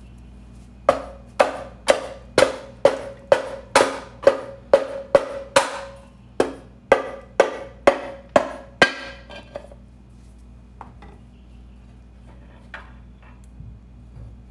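Repeated knocks on the Briggs & Stratton Quantum engine's aluminium sump cover, about sixteen sharp strikes at roughly two a second, each ringing briefly at the same pitch, to break the gasketed cover free. After about nine seconds only a few light clicks follow as the cover is lifted off.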